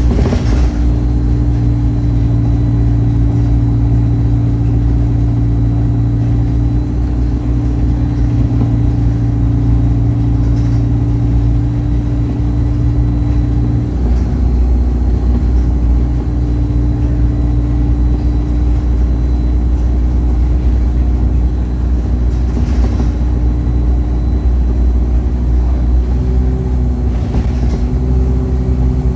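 Bus diesel engine running under way, with a thin high turbo whistle over the engine note. The engine note steps in pitch about halfway through and again near the end as the Allison automatic gearbox changes gear.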